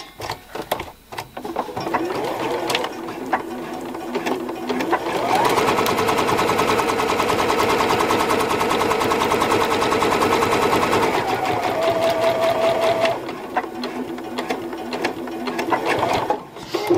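Sewing machine stitching a second seam line alongside a zip in twill denim. It runs at a moderate pace, speeds up and grows louder from about five seconds in, then slows again after about eleven seconds, with a few clicks near the end.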